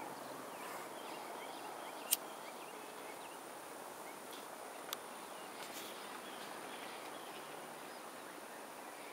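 Steady low background hiss with faint chirps, broken by one sharp click about two seconds in and a smaller click about five seconds in.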